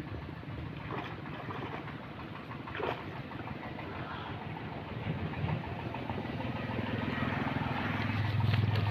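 An engine running steadily, growing louder over the last few seconds, over a noisy background with a few faint knocks.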